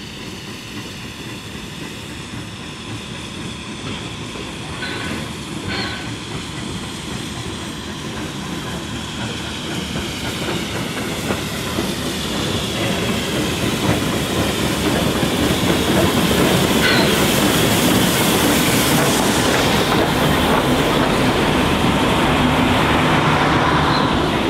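NSWGR 32 class steam locomotive 3237 and its carriages coming slowly into a station and rolling past close by. The sound grows louder over the first half and then holds, with wheels clacking over the rail joints.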